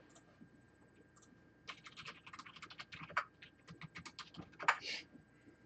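Typing on a computer keyboard: a few separate key taps, then a quick run of keystrokes from about two seconds in that stops shortly before the end.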